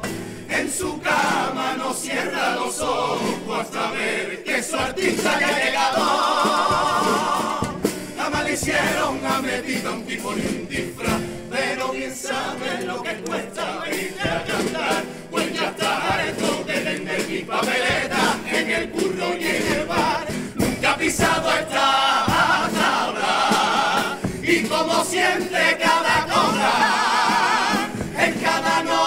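Cádiz carnival comparsa singing in chorus over rhythmic musical accompaniment.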